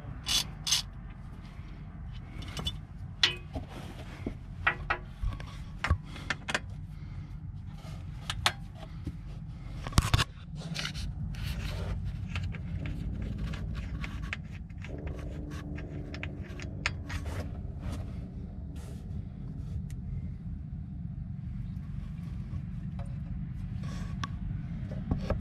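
Wrench clicks and metal taps as the drain plug is worked loose from an Allison 1000 transmission's steel oil pan. About ten seconds in, after a sharp click, comes a steady stream of transmission fluid pouring into a plastic bucket.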